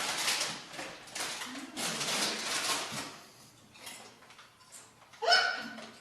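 A girl burping: one short, loud, pitched belch about five seconds in. Before it come a few stretches of breathy, hissy noise.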